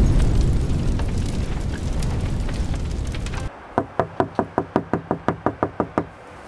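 A fading boom from a logo sound effect, then a quick run of about a dozen knuckle knocks on a glass pane, about five a second.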